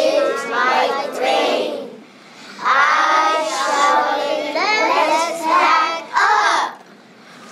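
A class of first-grade children reading a written message aloud in unison with their teacher, word by word, with a short pause about two seconds in and another near the end.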